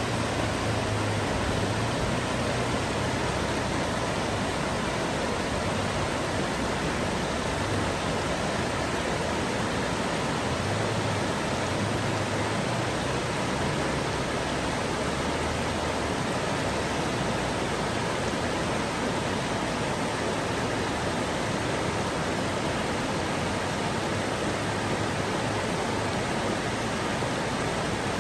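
Steady rushing of flowing water, even and unbroken.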